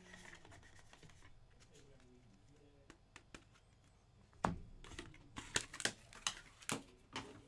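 Cardboard trading-card box being opened and its contents handled: a sharp tap about halfway through, then a run of light clicks and packaging rustles.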